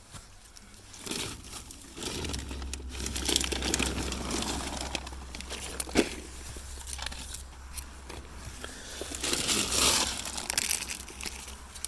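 Close rustling, crinkling and crunching with a sharp click about six seconds in, over a low steady rumble that starts about two seconds in.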